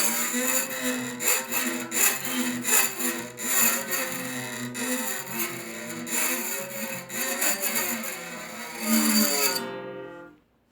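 Acoustic guitar strings scraped and rubbed while pitched notes slide up and down, a guitar imitation of a Formula 1 car. The scraping stops abruptly near the end, and the last notes die away.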